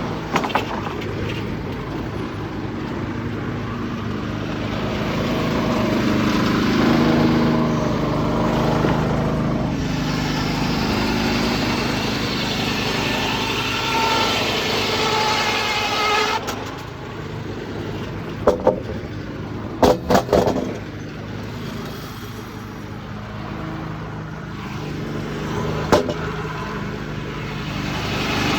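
Sawmill running on its Detroit 6-71 two-stroke diesel. The engine's note sags and swells under load through a cut, then eases off at about two thirds of the way in. Several sharp wooden clatters follow, the loudest a quick cluster just after the engine eases, all heard muffled from inside a pocket.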